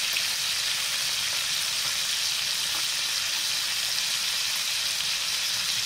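Pork rib pieces sizzling steadily as they sear in hot lard in a cast-iron pot, browning on their second side.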